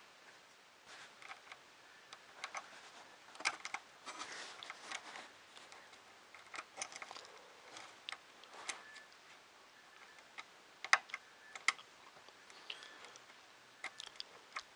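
Irregular small clicks and light clatter of small plastic and metal parts being handled and fitted by hand during 3D printer kit assembly, with two sharper clicks about three-quarters of the way through.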